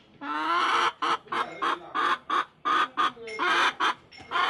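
Hens clucking: a rapid run of short clucks broken by a few longer drawn-out calls.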